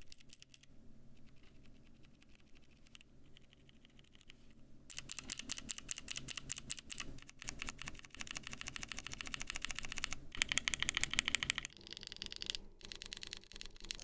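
Lubed mechanical keyboard switches (clicky blue, tactile brown and linear red) being pressed over and over by finger. Soft tapping for the first few seconds, then a louder, faster run of key clacks, a brief pause, and another run near the end.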